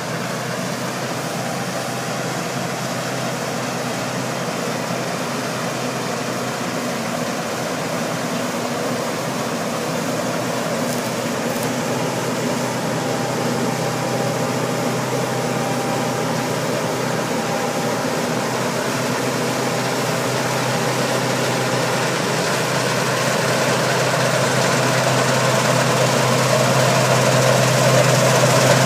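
Laverda combine harvester running steadily while cutting and threshing barley, engine and threshing machinery together with a constant low hum, growing gradually louder as it comes closer.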